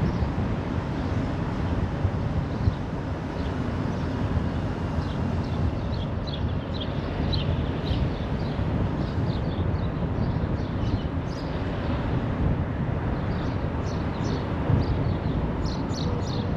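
Car driving at speed on a motorway: a steady rumble of tyres on the road and wind. Faint short high chirps come and go over it.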